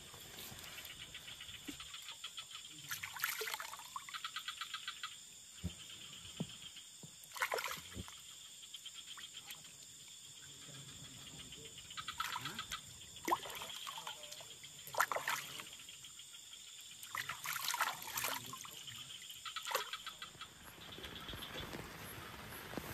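Frogs calling in short pulsed bursts every second or two over a steady chorus of crickets and other insects at a pond, with a little trickling water.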